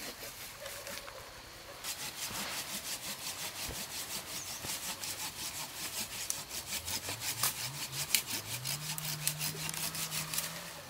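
Hand saw cutting through wood in quick, even back-and-forth strokes, about three a second, starting about two seconds in.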